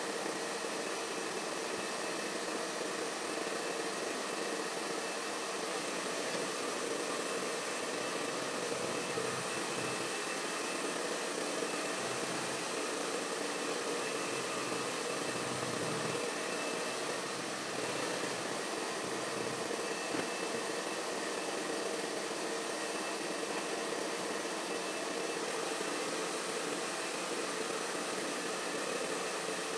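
Hair dryer running steadily: a continuous blowing rush with a faint steady motor whine, as a poodle's coat is blow-dried.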